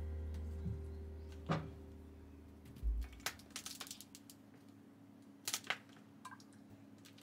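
Background music fades out in the first few seconds, then a scattering of light clicks and taps from kitchen handling: a plastic flip-top seasoning bottle and a metal measuring spoon being used over a clay pot.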